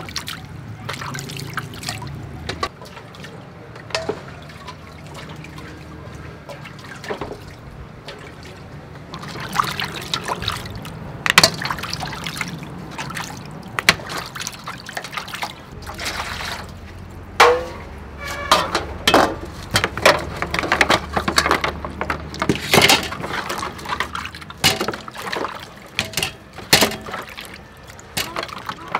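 Water trickling and splashing as clams are rinsed by hand in an aluminium basin, with frequent sharp clicks and knocks that grow busier after the first several seconds.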